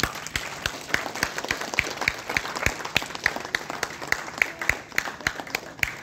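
An audience applauding, with one nearby pair of hands standing out in a regular beat of about three claps a second.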